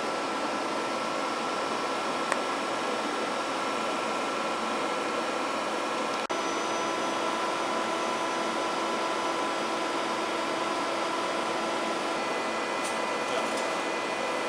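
FPT AREA M80 travelling column milling machine running: a steady whirring hum with several steady whining tones over it. There is a single click about two seconds in and a brief dropout about six seconds in, after which the tones shift slightly.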